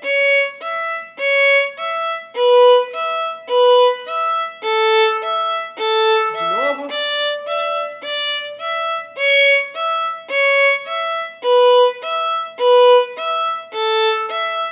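Violin played with the bow in a slow exercise of separate, evenly spaced notes on the A string, about two a second, moving back and forth between D and E, then C-sharp and E, down to B and the open A, and starting again: a drill for strengthening the fourth finger while keeping the other fingers down on the string.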